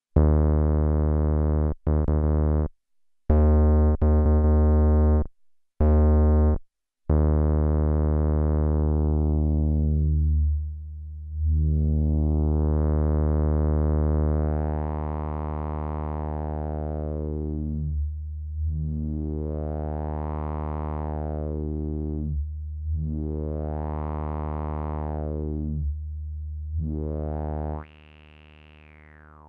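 Akai Rhythm Wolf's analog bass synth playing a low, buzzy note that is cut off and restarted several times in the first seconds. It is then held while the filter is swept closed and open about four times, so the tone darkens and brightens in slow waves. Near the end it turns much quieter.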